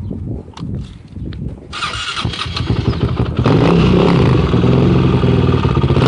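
2008 Honda TRX450ER sport ATV's 449 cc single-cylinder four-stroke engine starting. Low, uneven thumping for under two seconds, then the engine catches and runs, growing louder. About three and a half seconds in it jumps to a loud, steady run.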